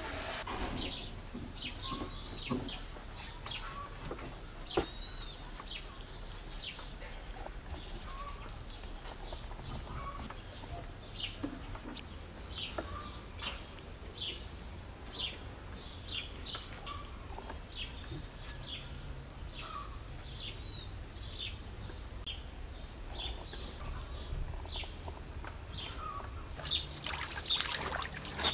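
Small birds chirping, short high calls one or two a second, with one sharp knock about five seconds in. Near the end a tap starts running water over raw meat being washed in a steel pot.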